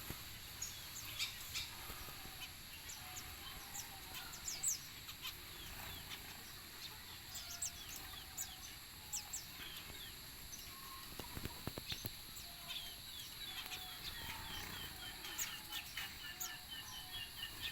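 Birds at a feeding spot, among them diamond doves: many short high chirps, with soft, short calls lower in pitch and a few sharp clicks about two thirds of the way through.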